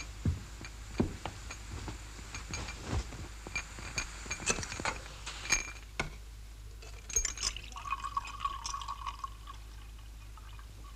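Glass and crockery clinking, with a short pour of water from a kettle into a glass about eight seconds in.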